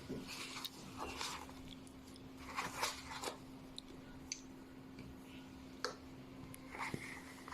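Scattered light clicks and short rustling handling noises at irregular intervals, over a faint steady hum.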